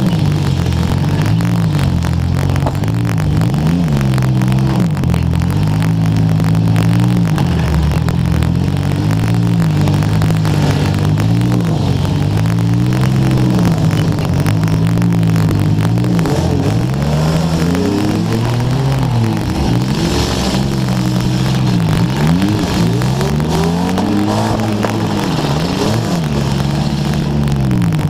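Demolition derby car engine revving up and down again and again, its pitch rising and falling every second or two. Crackling static runs over it from a wet GoPro microphone.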